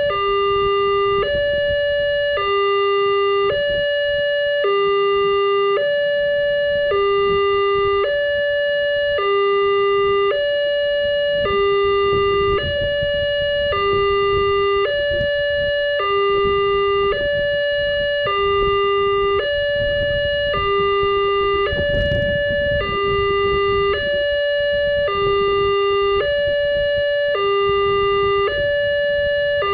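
Indonesian Wantech electronic railroad crossing alarm sounding its two-tone chime, alternating steadily between a low note and a higher note about once a second.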